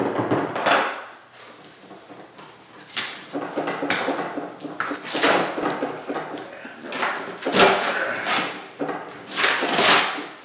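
Cardboard shipping box being pulled and torn open by hand to free the wooden crate inside: a run of ripping and crinkling bursts of cardboard, the loudest near the end.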